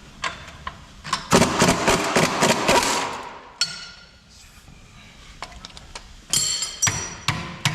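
Metal tools clanking and striking against a Jeep Wrangler's front suspension hardware, used as a hammer on stuck lift-kit parts. A rapid run of clatter comes about a second in, then single sharp metallic strikes with a brief ring.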